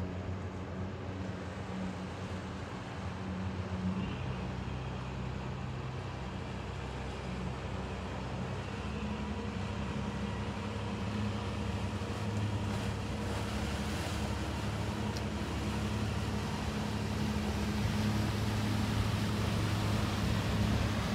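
Boat engines running steadily with a low hum. The engine of a fishing boat passing close grows louder toward the end.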